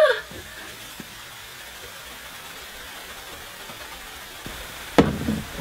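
Faint steady fizzing hiss of elephant-toothpaste foam bubbling as it spills out of a tall glass cylinder, with a single sharp knock about five seconds in.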